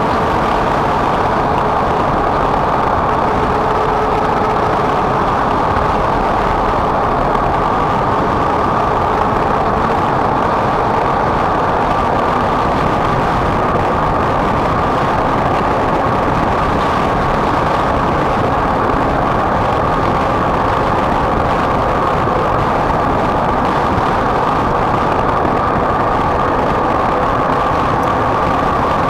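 Steady running noise of a moving road vehicle, engine and road noise holding an even level throughout.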